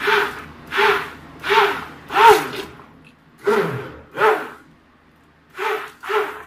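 Electric hand-held immersion blender pulsed in a plastic jug of liquid mix: eight short bursts, its motor whirring up and dying away each time, with longer pauses about three and five seconds in.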